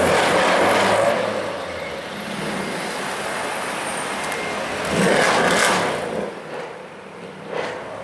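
Mercedes C63 AMG engine revving hard as the car accelerates. There are two loud bursts, one at the start lasting about a second and another about five seconds in, with street traffic in between.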